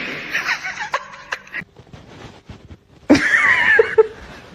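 People laughing, with a fresh burst of laughter about three seconds in.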